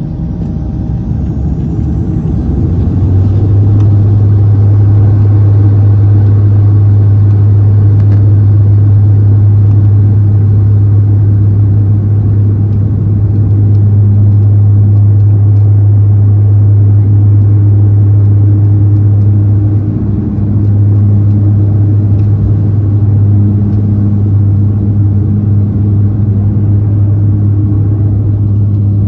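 Dash 8-400's Pratt & Whitney PW150A turboprops spooling up to takeoff power for the takeoff roll. A high whine rises over the first three seconds, then a loud, steady low propeller drone fills the cabin.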